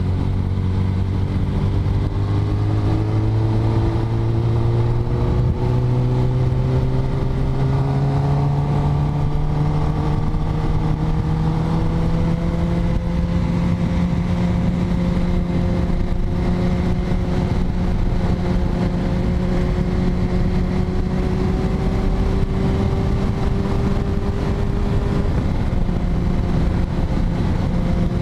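Kawasaki Ninja ZX-10R's inline-four engine running on the move, its note climbing slowly through roughly the first half, then holding steady at a cruise, with steady wind rush over it.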